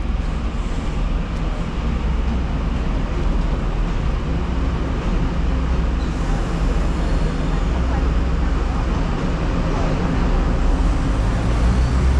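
Steady low rumble and running noise of a moving vehicle, growing slightly stronger near the end.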